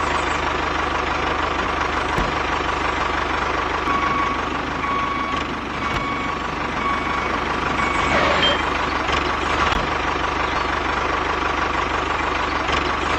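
Tractor engine sound running steadily for a toy tractor, with a series of short beeps partway through.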